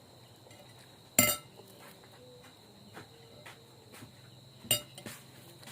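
Utensil clinking against a dish twice, sharp and briefly ringing, the first the louder. A faint steady high-pitched tone continues underneath.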